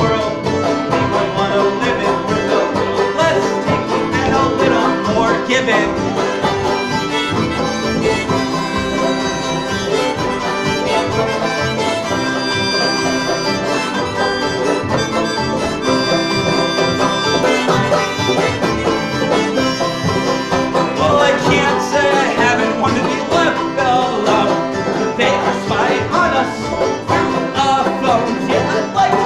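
Live acoustic string band playing an upbeat instrumental passage in bluegrass style, with banjo and mandolin picking over guitar, bass and accordion.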